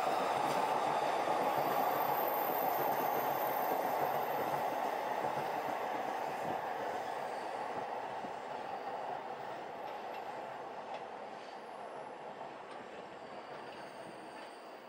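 JR East Utsunomiya–Takasaki Line electric commuter train running along the tracks, its wheel and rail noise fading steadily as it draws away.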